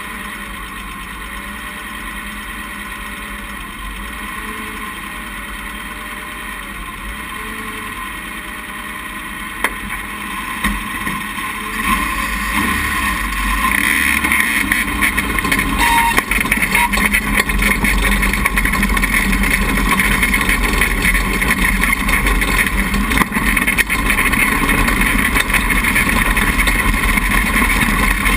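Sand rail's engine running while parked, then pulling away about halfway in and running steadily and louder under way.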